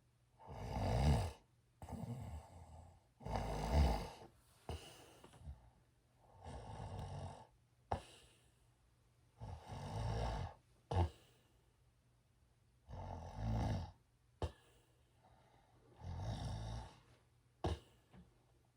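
A person snoring: a rough, rasping snore on each breath, coming about every two to three seconds, about six or seven in all, with faint short clicks between some of them.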